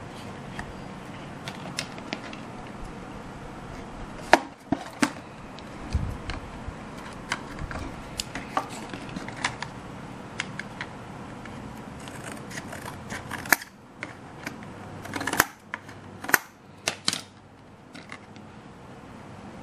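Irregular snips and clicks of handwork: scissors cutting and small pieces being tapped and handled on a work surface, with a few sharper clicks in the second half.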